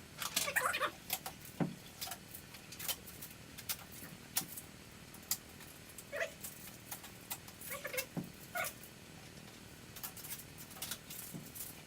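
Tape and plastic packing material being peeled and pulled off a new printer: an irregular run of sharp crackles and crinkles, with a few short squeaks about halfway through.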